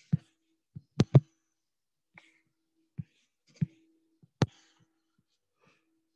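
Computer mouse clicking: a scattered series of sharp clicks, with a quick pair about a second in, then nothing after about four and a half seconds.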